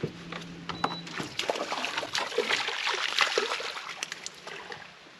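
Water splashing, with many sharp clicks, as a hooked bass is brought to the boat. A low steady hum stops about a second in.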